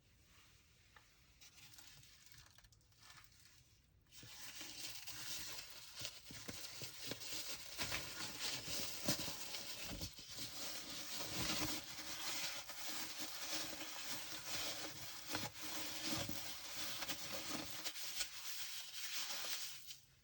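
Packaging being unpacked by hand: plastic and paper rustled, crinkled and torn, with scattered clicks and knocks. It starts softly and turns loud and continuous about four seconds in.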